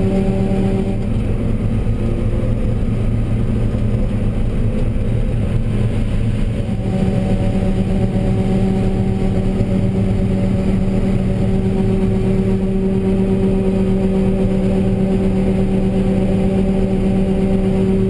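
John Deere 9770 combine running under harvesting load, heard from inside its cab: a steady machine drone with a strong hum. The hum drops away about a second in and returns about seven seconds in.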